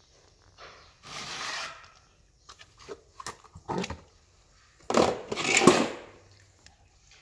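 Handling noises of a clear plastic tub and slabs of jelly on a concrete floor as the tub is lifted off a slab of green jelly and the slab is shifted into place: a scrape about a second in, a few light knocks, then the loudest stretch, a rustle with sharp clicks, about five to six seconds in.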